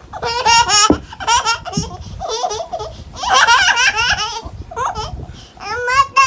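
Small girl laughing helplessly while being tickled, in repeated high-pitched bursts of wavering laughter.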